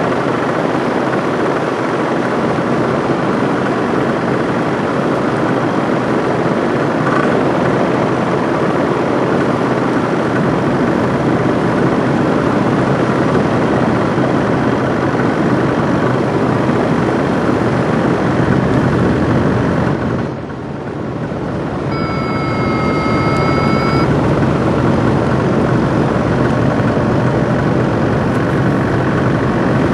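Steady rushing wind noise on the microphone of a camera in flight. It eases briefly about two-thirds of the way through, and then a steady beep sounds for about two seconds.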